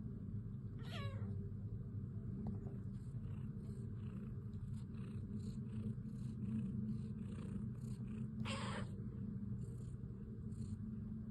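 Domestic cat purring steadily, with one short meow that falls sharply in pitch about a second in. A brief noisy burst comes about three-quarters of the way through.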